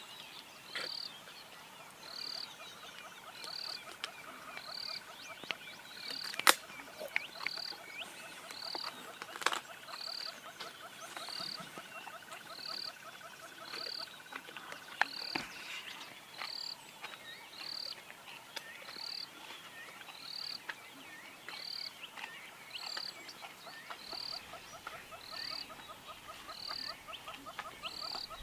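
Bush ambience: a short high call repeats about once a second, over a faint pulsing trill, probably from insects or frogs. Three sharp clicks stand out, the last about fifteen seconds in.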